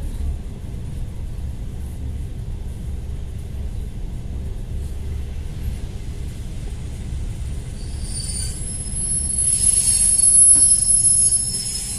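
ED4M electric multiple unit running with a low rumble, then from about eight seconds in a high-pitched squeal from its wheels that swells and fades near the end as the train slows into the station.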